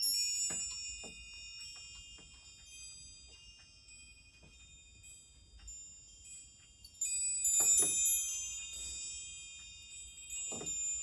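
Metal chimes struck twice, at the start and again about seven seconds in, each strike a cluster of high ringing tones that rings on and slowly fades, with a few faint soft knocks in between.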